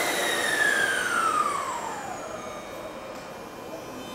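Sudden hiss of compressed air from a Kintetsu limited express train's brakes being released before departure. A whistling tone falls steadily in pitch through the first two seconds and then fades under the hiss.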